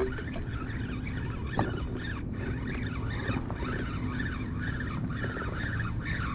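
Steady low hum of a boat engine running, with a faint wavering chirp repeating two or three times a second above it.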